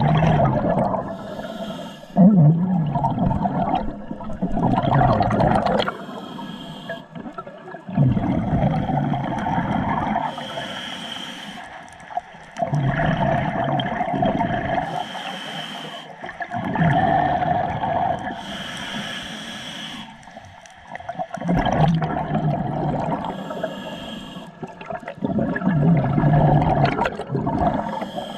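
Scuba diver breathing through a regulator, heard underwater: a short hiss on each inhalation, then a burst of exhaust bubbles gurgling past, repeating about every four seconds.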